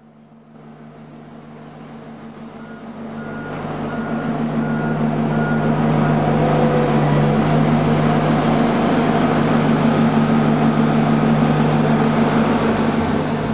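A motor vehicle's engine running with a steady low hum. Its noise swells over the first few seconds, then holds loud.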